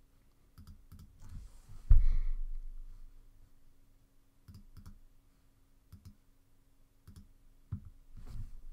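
Scattered clicks of a computer mouse and keyboard, with one heavier thump about two seconds in. A faint steady hum sits underneath.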